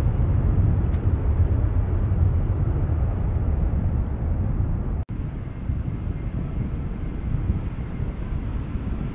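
Jet airliner engines giving a steady, deep rumble. About five seconds in it cuts out for an instant, then continues a little quieter.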